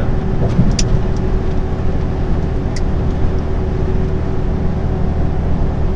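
Steady drone of a lorry's engine and road noise heard inside the cab while driving on the motorway, with a constant hum running through it. Two brief faint ticks come about one second and three seconds in.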